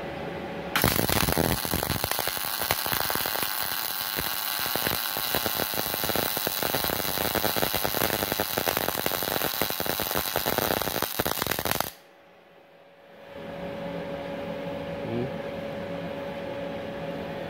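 MIG/MAG welding arc from a Multipro MIG-MAG 250NF G KR II welder running a CO2-shielded bead: a steady dense crackle that starts about a second in, lasts about eleven seconds and cuts off suddenly.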